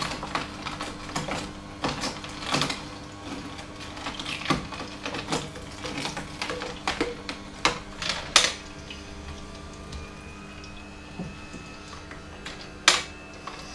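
Philips masticating juicer's screw auger crushing carrots: irregular sharp cracks and clicks over the low, steady hum of its quiet motor. The cracking thins out in the second half, with one loud crack near the end.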